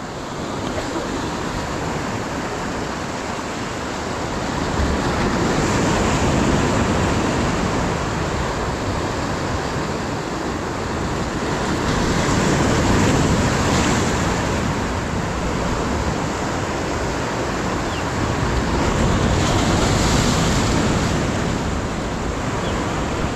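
Ocean surf breaking and washing over the boulders of a rock jetty, a steady rush that swells louder three times, about seven seconds apart, as waves come in.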